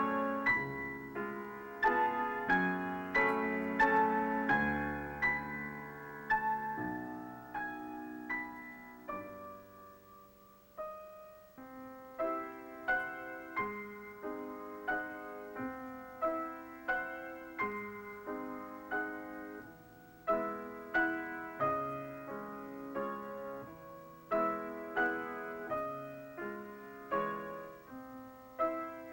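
Solo piano music: single notes and chords struck and left to ring. The playing thins out and fades around ten seconds in, then picks up again with a steady run of notes.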